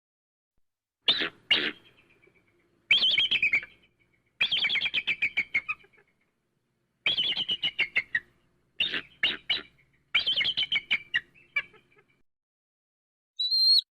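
A bird of prey, eagle or hawk, calling in bouts of rapid, high chattering notes that fall slightly in pitch, about six bouts with short silent gaps between them. Near the end a single clear whistled call begins.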